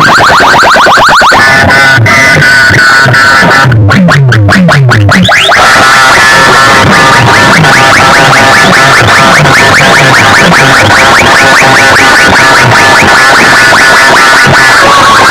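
Very loud, distorted electronic DJ sound effects through a competition loudspeaker setup: rapidly repeating chirping, siren-like tones over repeated falling bass sweeps, with a brief break about four seconds in where the bass sweeps come through alone.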